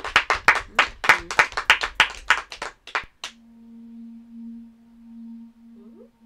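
A few people clapping their hands, about six claps a second, stopping about three seconds in. Then a steady low drone tone starts: the opening of the played video's soundtrack.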